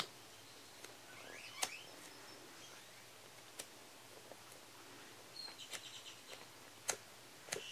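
Soft foam squishy toy, a slow-rising iBloom penguin, being squeezed and pressed by fingers: quiet handling with a few sharp isolated clicks and some faint high squeaky glides about a second and a half in.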